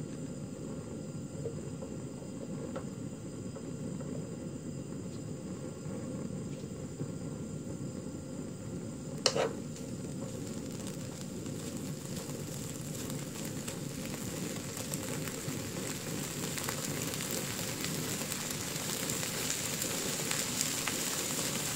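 Slices of Spam sizzling in a frying pan on a gas burner, growing louder as the pan heats. One sharp clink of the metal tongs against the pan comes about nine seconds in.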